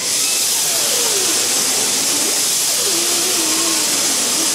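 Compressed air hissing steadily from an air-line nozzle held at a rear-wheel oleo leg cylinder.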